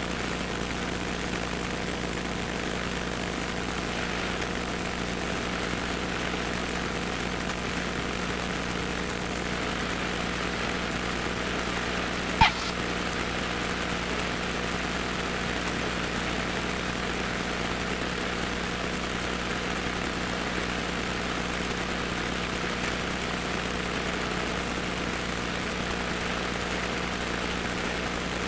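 Single-engine light airplane's piston engine at idle power during landing and rollout, a steady drone heard from inside the cockpit. A single sharp click about twelve seconds in.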